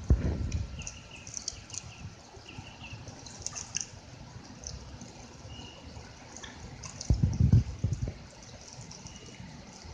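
Water dripping and lightly splashing as a dense school of mullet flickers at the surface, with many small scattered splashes. Two bursts of low rumble, at the start and about seven seconds in, are the loudest moments.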